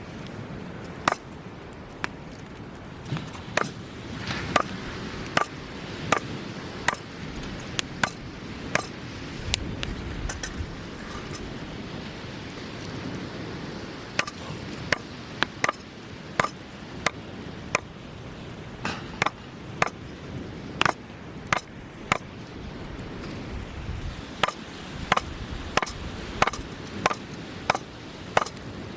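Wood fire crackling in a fire pit: sharp, irregular pops about once a second, over a steady low rushing background.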